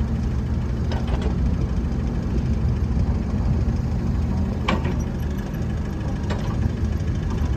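Kubota KX161-3SZ midi excavator's diesel engine running steadily while the boom and arm are worked hydraulically. A few short clanks come through, the loudest nearly five seconds in.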